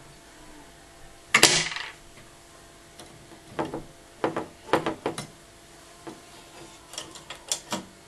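Wooden bird trap's top trap door snapping shut with a sharp clatter about a second and a half in, then a series of light wooden clicks and taps as the trap is handled, in two clusters near the middle and near the end.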